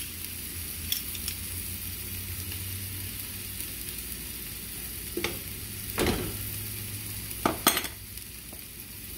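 Thin slices of beef sizzling steadily in oil in a frying pan, with a few sharp clicks and knocks from a metal garlic press being worked over the pan, the loudest pair near the end.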